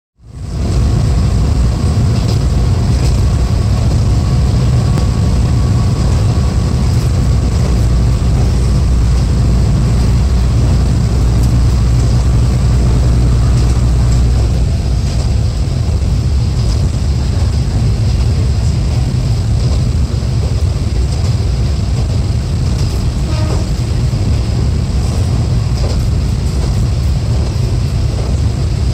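Kanto Railway KiHa 532 diesel railcar under way, heard from inside the car: a steady low engine drone over wheel-on-rail rumble. About halfway through the engine note falls away and the running noise carries on.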